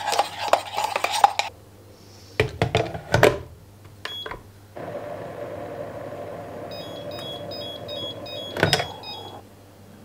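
A spoon clinking as it stirs coffee in the pot of an electric Turkish coffee machine, then clacks as the pot is set into the machine and a click. The machine then runs with a steady hum. Partway through it gives a quick run of electronic beeps, about four a second, the usual signal that the coffee is ready, and there is a clack near the end.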